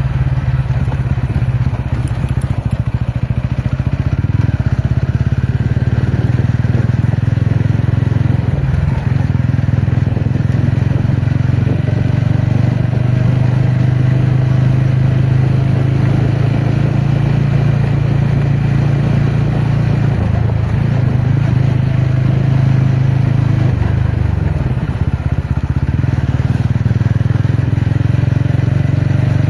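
TVS Ronin motorcycle's single-cylinder engine running under way on an off-road ride, its engine note steady with a few shifts in pitch as the throttle or gear changes.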